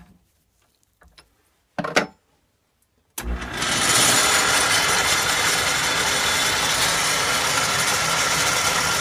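A couple of light metal knocks, then about three seconds in a lathe switches on and runs steadily with a faint whine, spinning a small-engine crankshaft to check whether it runs true.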